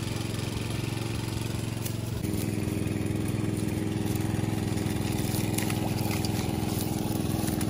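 Small engine-driven water pump running steadily as it pumps water out of the pond; its pitch shifts slightly about two seconds in.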